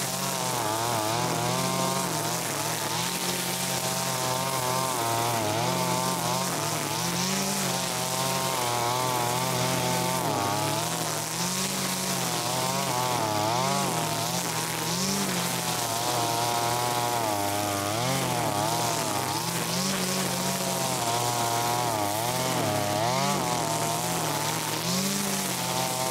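Zenoah BCZ261 brushcutter's 25.4 cc two-stroke engine running at high revs, its pitch wavering up and down over and over as the saw-type nylon cutter head is swept through tall grass.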